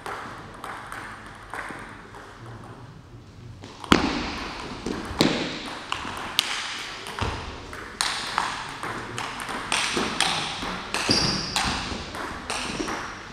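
Table tennis rally: the ball clicks sharply off the bats and the table in a quick back-and-forth rhythm. It starts with the serve about four seconds in, after a few seconds of faint taps, and each hit echoes briefly in the hall.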